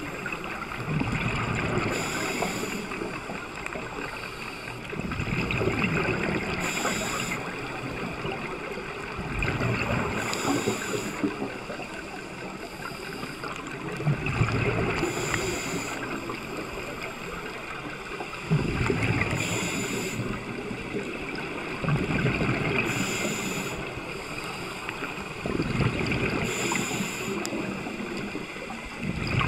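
Scuba diver's regulator breathing heard underwater: a short hiss of each inhalation and a rumble of exhaled bubbles, the cycle repeating about every four seconds.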